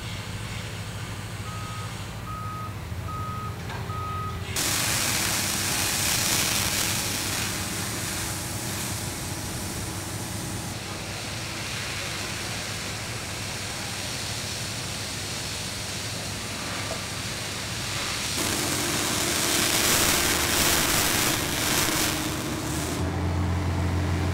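Construction vehicle's reversing alarm beeping about four times at one steady pitch over a low engine hum. Then, about four and a half seconds in, a louder, steady rushing noise takes over.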